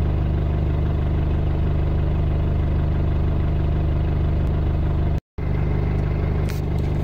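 Car engine idling at about 1,000 rpm with the car standing still, heard from inside the cabin as a steady low hum. The sound cuts out for a moment a little after five seconds in, then carries on.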